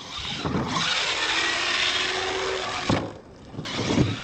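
Radio-controlled monster truck driving hard across loose dirt: a steady rush of tyres and motor with a faint whine beneath it, then a sharp thump near the end as the truck hits a ramp.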